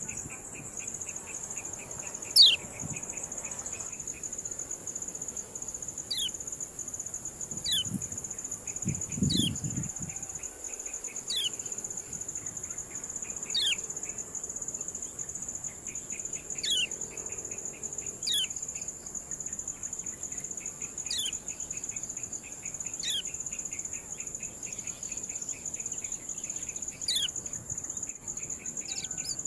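Kecial kuning giving short, sharp 'ciak' calls, each a quick downward sweep, repeated about every two seconds over a steady high-pitched insect-like drone, with a fast chattering trill under them at times.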